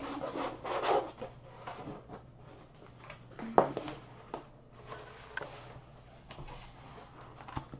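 A rolled diamond-painting canvas with its plastic cover film being unrolled and smoothed flat on a wooden table: rustling and crinkling of the stiff sheet. There is one sharp knock about three and a half seconds in.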